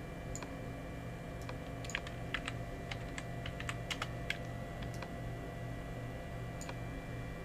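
Scattered, irregular clicks of a computer keyboard and mouse as the modelling software is worked, over a faint steady hum.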